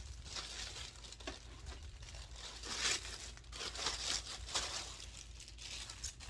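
Packaging wrap crinkling and rustling in irregular handfuls as a new Coach backpack is unwrapped, loudest in a few swishes around the middle.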